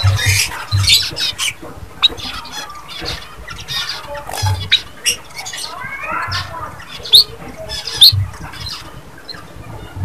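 White-headed munia (emprit kaji) calling: short, sharp, high chips that sweep upward, with a brief chattering run of squeaky notes about six seconds in. Dull low thumps come in now and then.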